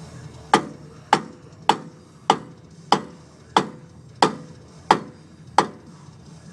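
Hammer striking the wheel hub of a 2001 Dodge Ram 1500: nine sharp blows, evenly paced about two-thirds of a second apart. The lug nuts are threaded onto the wheel studs to keep the blows from damaging them.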